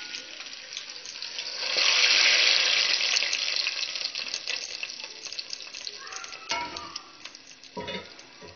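Hot tadka of oil fried with garlic, onion, green chillies and red chilli powder poured onto cooked masoor dal. It sizzles loudly for about two seconds, then dies away to a soft crackle. A couple of knocks follow near the end.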